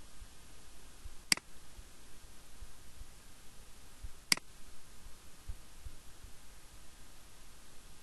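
Two sharp computer mouse clicks about three seconds apart, over a steady faint hiss.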